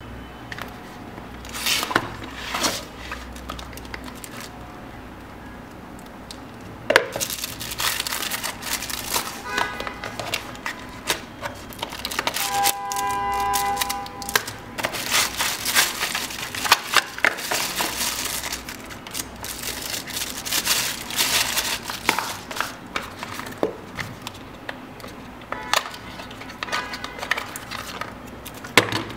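Hands unpacking a white cardboard phone box: the lid lifted and the cardboard trays and paper sleeves handled, with irregular rustling, scraping and light knocks, and a short squeaky tone about halfway through.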